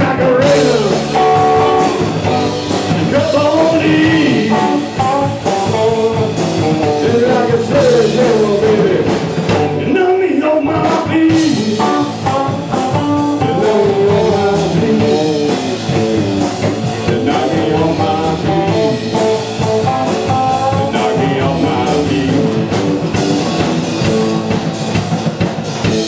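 Live blues-rock band playing: bending, gliding electric guitar lines over bass and a drum kit, loud and continuous.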